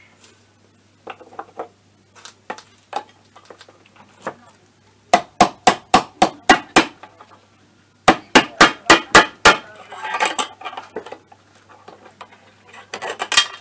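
Hammer striking a tube used as a drift to drive the crankshaft oil seal into an MBK Spirit scooter's crankcase. After a few light taps come two quick runs of sharp strikes, about five a second: one about five seconds in and another about eight seconds in. Softer clatter of handling the parts follows.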